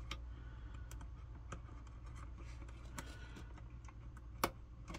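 Faint clicks and scratches of fingers handling wires and small plastic connectors inside the base of an Instant Pot Duo pressure cooker, with one sharper click near the end.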